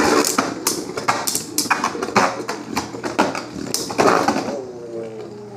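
Two Beyblade Burst spinning tops battling in a plastic stadium: rapid, irregular clacks as the tops hit each other and the stadium wall, with a louder flurry of hits about four seconds in. Near the end a drawn-out call falls in pitch.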